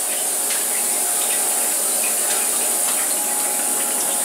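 Steady sound of flood coolant running and trickling, a continuous watery hiss with a faint steady hum under it.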